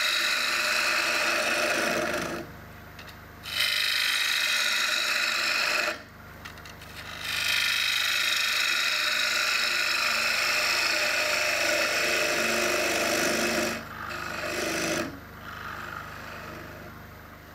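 Gouge cutting into spinning wood on a Robust lathe, hollowing a shallow chuck recess in the face of a disc. The cut comes in three long passes with short pauses between them, and only the lathe running quietly is left near the end.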